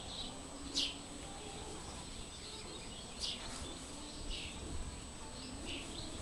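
Small birds chirping: short, high, falling chirps heard several times, the loudest about a second in, over a low outdoor rumble.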